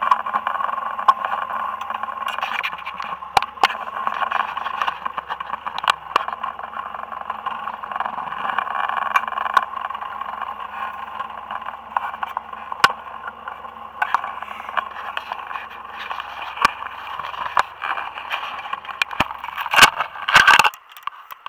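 A boat's motor running steadily under way, with scattered clicks and rattles throughout. Near the end a burst of loud knocking and rubbing as the camera is handled, after which the low hum drops out.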